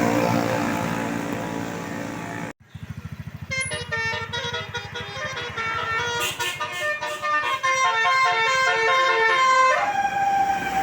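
Tour bus 'telolet' Basuri musical horn playing a quick tune of short stepping notes over the bus's idling diesel engine, ending on one long held note near the end. The first couple of seconds hold loud engine noise that breaks off abruptly.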